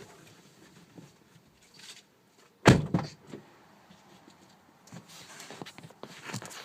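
A single heavy thunk about two and a half seconds in, followed by a few lighter knocks.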